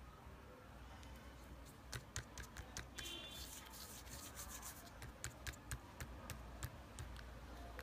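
Fingers pressing and poking pink slime in a plastic tub, giving faint sticky clicks and pops that come irregularly from about two seconds in.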